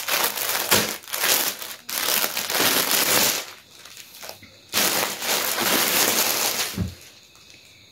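Clear plastic clothing packaging crinkling and rustling as folded garments are slid out of it. It comes in long stretches, with a quieter gap around the middle, and dies away shortly before the end.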